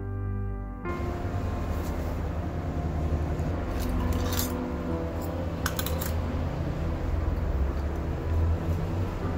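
Hands rummaging through utensils in a soft-sided cooking-gear case, with a few light metallic clinks and rattles, the loudest around the middle, as a folding stainless-steel ladle is drawn out. A steady low rumble runs underneath, and background music cuts off about a second in.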